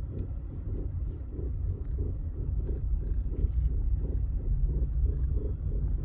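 Volkswagen Polo driving, heard from inside the cabin: a steady low rumble with a rapid repeated pulsing, about four a second. The front suspension's silent blocks (rubber control-arm bushings) are damaged.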